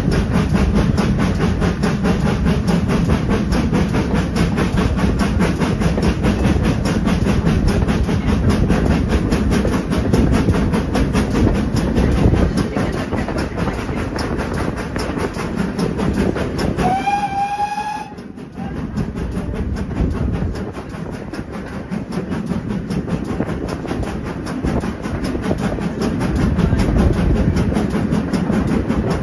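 Steam-hauled train running along the line, heard from a carriage window: steady wheel-on-rail clatter and rolling noise. About 17 seconds in, the locomotive's whistle sounds once for about a second; the engine is the GWR Manor-class 4-6-0 Odney Manor.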